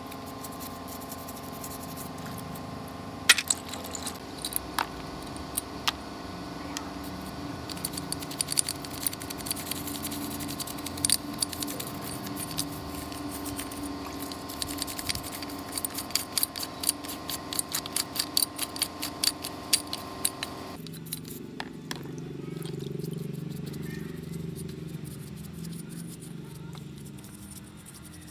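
A brush scrubbing a chainsaw flywheel's cooling fins in a tray of cleaning liquid: quick scratchy clicks and rattles with small splashes, thickest in the middle and thinning out after about 21 seconds. Steady held background tones run underneath and change about 21 seconds in.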